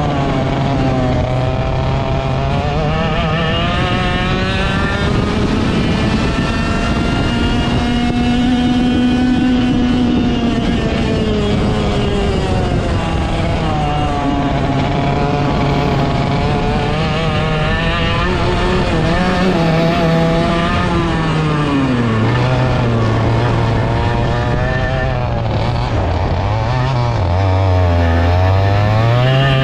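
Direct-drive dirt kart engine running flat out around the track, heard on board. Its revs rise and fall with road speed through the corners, since a direct-drive kart has no clutch between engine and axle. The deepest drop comes near the end, in a slow corner, before it winds up again.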